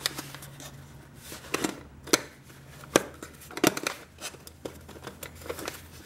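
A 32-ounce aluminum cook pot with its lid and packed gear being handled and worked into a mesh drawstring bag: rustling with scattered light knocks and clicks of metal, about a dozen over a few seconds.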